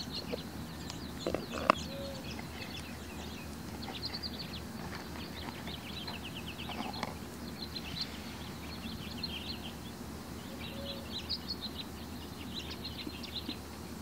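Small birds chirping and trilling throughout, short high notes and quick rapid runs of notes, over a steady low background noise. A single sharp click about two seconds in.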